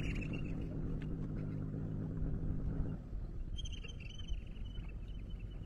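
An engine running steadily with a low, even note, which stops about three seconds in, leaving faint outdoor background.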